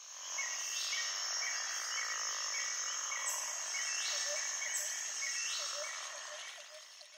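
Chorus of insects and frogs: a steady high trill under short calls that repeat about every half second. It starts abruptly and fades out near the end.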